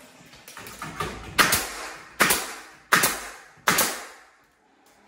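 Wooden shims being tapped into the gap between a door's hinge-side jamb and the wall framing: a couple of light taps, then four sharp knocks about three-quarters of a second apart.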